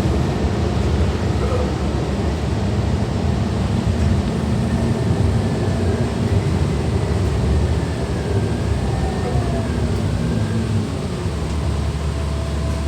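City transit bus engine and drivetrain running, heard from inside the bus: a steady low hum with a faint high whine that wavers in pitch.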